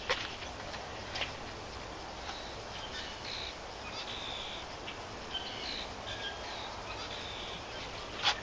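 Birds chirping with short high calls and brief held notes, over a steady outdoor background, with a few sharp clicks near the start, about a second in, and at the end.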